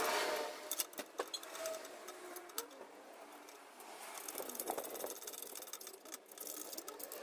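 Scattered light clicks and knocks, with faint brief tones in between.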